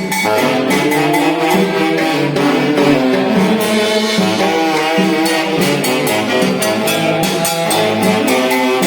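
Tunantada, the Peruvian folk dance music, played by a band orchestra with saxophones, brass and drums at a steady, even beat.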